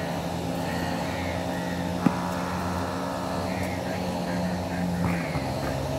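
A motor drones steadily, dropping slightly in pitch about five seconds in. A single sharp bounce of a basketball on the court about two seconds in, with a short ring after it.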